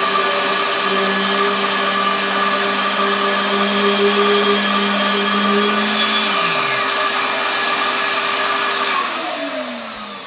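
Festool orbital sander with 150-grit paper running against a wooden tabletop, with a shop vacuum drawing dust through it, both running steadily. About six seconds in the lowest hum drops in pitch as one motor spins down. From about nine seconds the remaining sound falls in pitch and fades as the other motor winds down.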